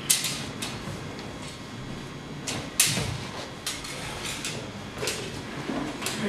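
Steel rapier blades clashing and scraping a few times during a rapier-and-dagger bout, in short sharp strikes. The loudest clash comes about halfway through.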